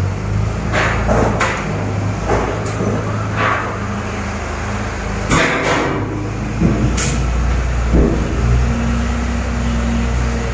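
Heavy diesel machinery engine running steadily, its pitch shifting with load, with repeated metal clanks and knocks from the equipment being moved.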